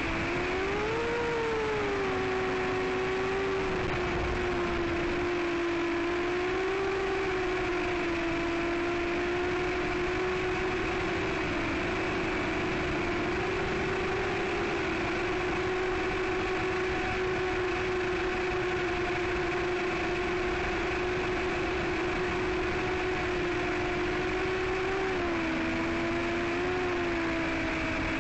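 A racing quadcopter's four Emax RS2205 2600kV brushless motors and 5-inch propellers whine steadily in flight, with a constant rush of wind, as heard from the onboard camera. The pitch rises briefly about a second in and drops slightly near the end.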